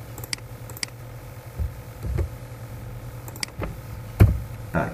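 Computer keyboard typing: scattered single key clicks, a few coming in quick succession after about three seconds, and two louder low thumps near the end, over a steady low hum.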